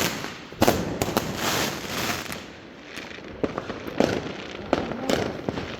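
New Year's fireworks going off: several sharp bangs, the first about half a second in and more around four and five seconds, over a continuous crackling.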